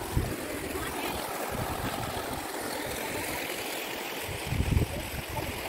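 Stream water running with a steady rushing sound, and a few low thumps about four and a half seconds in.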